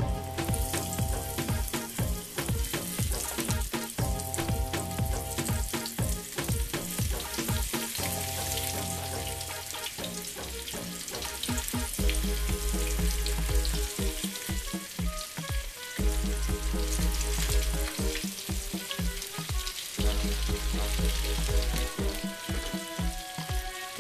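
Breaded chicken pieces frying in hot oil in a frying pan, a steady sizzle as the pieces are laid in one by one. Background music with a steady beat plays over it, its bass coming in about halfway through.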